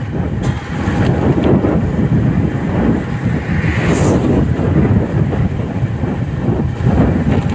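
Wind rushing over the microphone of a moving motorcycle, with the bike's running and its tyres on the wet road beneath. A brief hiss about four seconds in.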